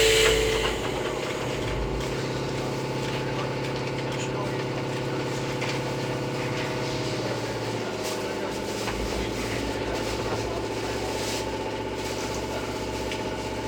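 Steady electrical hum inside an Izuhakone Railway 3000 series electric train car, several tones held level with a noisy undertone and a low tone shifting about halfway through.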